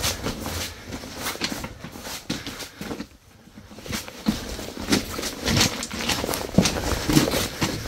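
Footsteps scrambling over loose rock rubble, stones crunching and clattering underfoot, with a short lull about three seconds in.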